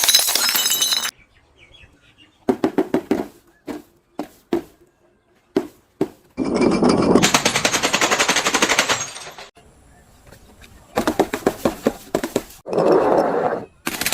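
Things being crushed, crunching and crackling in rapid runs of sharp cracks. There are several bursts, and the longest comes about halfway through.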